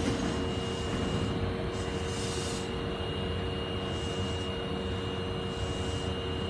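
Subway train standing at a platform: a steady electrical hum with a constant high whine, and hiss that comes and goes every second or so.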